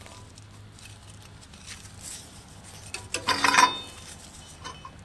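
Freshly cut steel pieces clinking and scraping against each other and the metal band saw table as they are handled, with the loudest clatter about three and a half seconds in. A low steady hum runs underneath.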